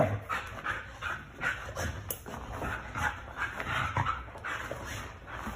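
A husky making short, soft whines and huffs during rough play with a person's hands, coming irregularly, a couple each second.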